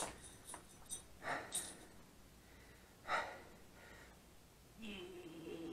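A person's short breathy huffs and gasps, several in a row, then a strained, held grunt starting near the end, as if straining at a task.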